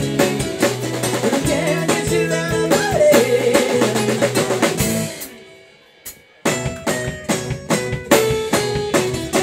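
Live rock band, with electric guitar, acoustic guitar and drum kit, playing. About five seconds in the band stops dead for about a second, with a single hit in the gap, then comes back in on hard, accented drum hits.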